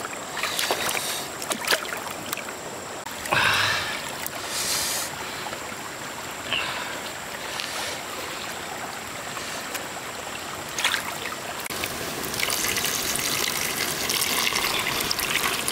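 Water splashing and trickling as a catfish is rinsed by hand in shallow river water, with a few short splashes. In the last few seconds a thin stream of water pours steadily onto the fish in a hollowed watermelon half.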